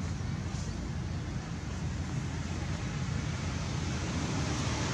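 Steady outdoor background rumble with a fainter hiss above it.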